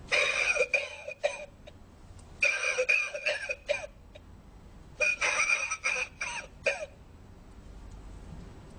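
Lung-shaped novelty ashtray playing its recorded coughing: three bouts of coughs, each a second or so long, a couple of seconds apart.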